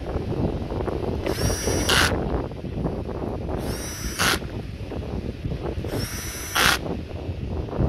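Cordless power tool with a socket extension driving the ignition coil hold-down bolts, one bolt after another: three short runs about two seconds apart, each a rising motor whine that ends in a brief rattle.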